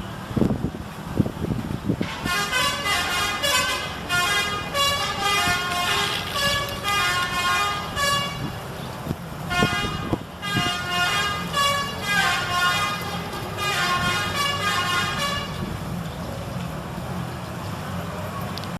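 Tour bus's 'telolet' musical air horn playing short multi-note tunes over and over, each phrase a couple of seconds long, over a steady low hum. A few loud knocks come in the first couple of seconds, and the tunes stop a few seconds before the end.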